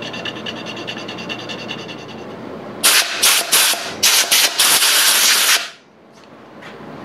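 A carborundum stone rubbing along the edges of a machined metal part to take off burrs. Then, about three seconds in, a compressed-air blow gun hisses in several short blasts and one longer one, clearing chips from the part's slot, before cutting off.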